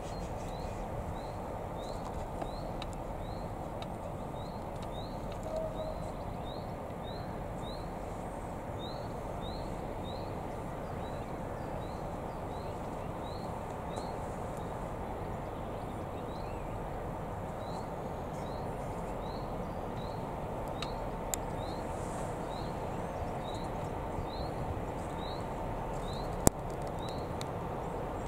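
Low steady rumble of diesel locomotives approaching slowly, heard faintly under outdoor noise. A short high chirp repeats about every two-thirds of a second, and a single sharp click sounds near the end.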